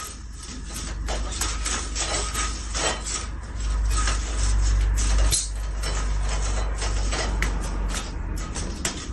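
Irregular clattering and knocking, many small hits, over a steady low rumble.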